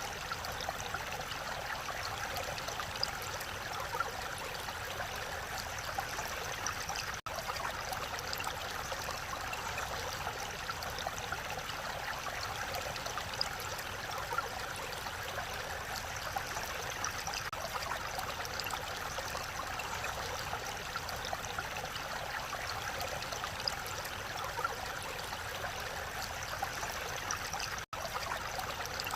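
Mountain valley stream flowing steadily, a continuous rush of water. The sound cuts out for an instant twice.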